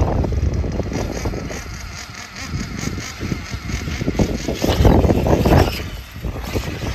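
Wind buffeting the microphone in gusts, over the sound of a 1/8-scale RC off-road buggy running on a dirt track.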